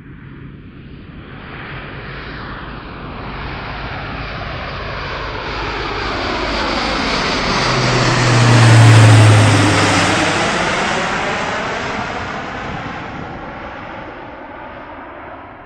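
Airbus A400M four-engine turboprop transport passing low overhead. The propeller drone builds, peaks about nine seconds in and fades away, and its low hum drops in pitch as the aircraft goes by.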